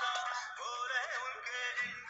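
Background devotional music: a wavering sung melody line over thin accompaniment with little bass.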